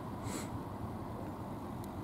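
Low steady rumble of two diesel multiple-unit trains approaching on converging lines, with a short hiss about a third of a second in.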